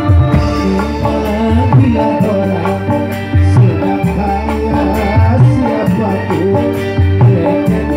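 Live dangdut band playing an instrumental passage with a steady beat: bass, melody instruments and shaker-like percussion.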